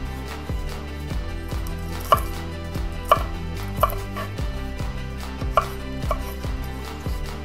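Chef's knife dicing green bell pepper on a wooden cutting board: irregular knocks of the blade hitting the board, a handful of them sharper and louder than the rest, with softer taps and slides as the pieces are pushed aside.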